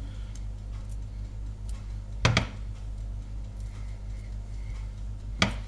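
Raw meatballs being set by hand into a frying pan of hot olive oil, giving two short knocks, about two seconds in and near the end, over a low steady hum.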